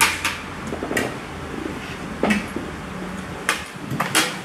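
Metal forks and spoons clinking against ceramic plates and bowls during a meal: a few sharp, scattered clinks over a low room hum.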